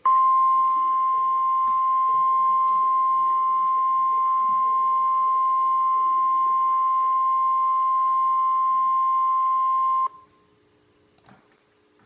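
NOAA Weather Radio warning alarm tone (1050 Hz) from a weather radio receiver: one loud, steady, high single tone that lasts about ten seconds and cuts off abruptly. It alerts listeners that an emergency message follows, here a tornado watch.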